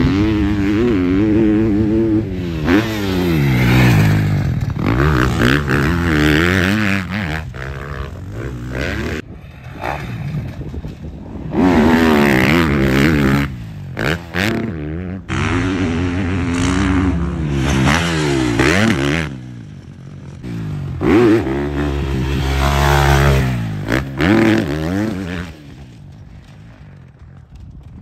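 Motocross bike engine revving up and easing off over and over as it is ridden around a dirt track, its pitch climbing and dropping with the throttle and gear changes. There are short lulls between stretches, with the quietest stretch near the end.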